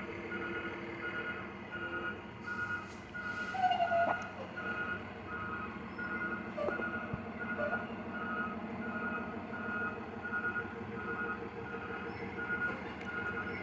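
Vehicle reversing alarm beeping at an even pace, a little faster than once a second, over a running engine, with a brief squeal about four seconds in.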